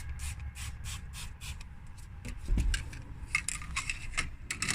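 Quick back-and-forth rubbing strokes on a car's interior trim, several a second, scrubbing off dirt, with a low thump about two and a half seconds in.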